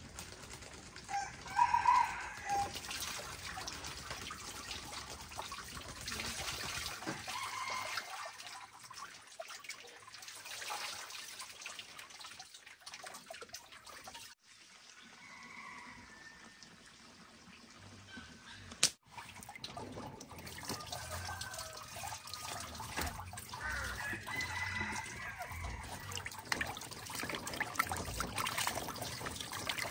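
Water splashing and trickling as hands rub and peel boiled eggs in a basin of water, with chickens clucking in the background a few times.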